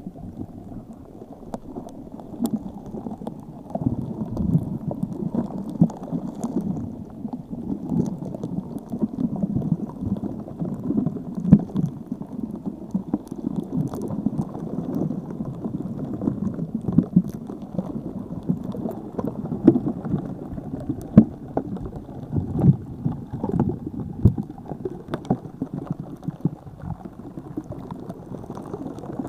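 Muffled water sounds, bubbling and gurgling with many small pops and splashes, dulled by a fish-bowl filter that cuts off the high end.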